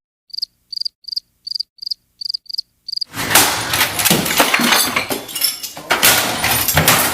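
A cricket chirping, most likely an edited-in sound effect: about nine short high chirps, roughly three a second, against dead silence. About three seconds in, a loud, noisy outdoor rush with scattered clicks cuts in and takes over.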